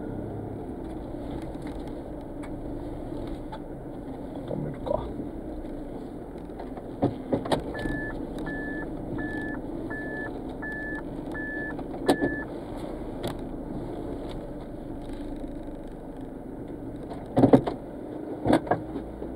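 A car's engine runs at low speed, heard from inside the cabin, as the car is manoeuvred into a parking space. In the middle an in-car electronic beeper sounds seven short, evenly spaced beeps about two-thirds of a second apart, as a car's warning does while reversing. A few knocks and clicks from the controls follow near the end.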